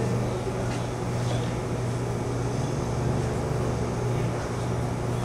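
Steady low hum of running plant machinery, with a couple of faint clicks about a second in.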